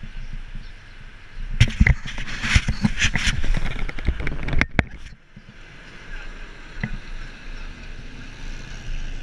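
Wind buffeting the microphone of a camera riding on a moving bicycle, a steady low rumble with hiss. From about one and a half to five seconds in comes a run of sharp knocks and rattles, loudest near two seconds.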